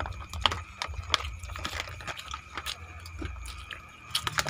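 Scattered small clicks and crackles of hands digging fried rice and chicken out of a thin clear plastic tray, over a low steady hum.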